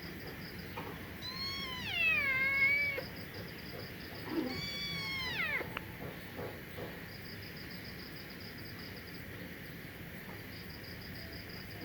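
A cat meowing twice, each a long call that falls in pitch, the first at about a second in and the second about halfway through. A high insect chirp pulses in the background.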